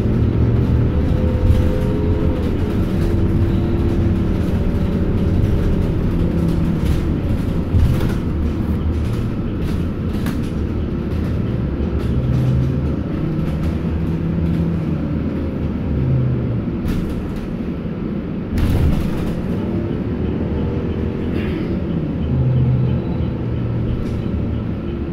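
Transit bus engine and cabin rumble heard from inside the bus. The engine pitch rises and falls as the bus speeds up and slows, with a few sharp knocks and rattles from the body, loudest about 8 and 19 seconds in.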